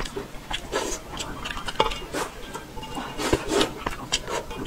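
Chopsticks clicking and scraping against a steel bowl as fish is picked out of braised fish broth, with close-miked eating sounds between the clicks.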